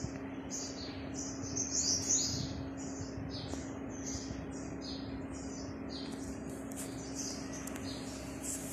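Small birds chirping, a steady run of short high chirps about two or three a second, over a faint steady hum.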